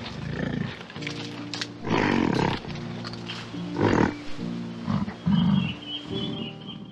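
Several separate animal calls, each about half a second long, over background music with steadily held notes.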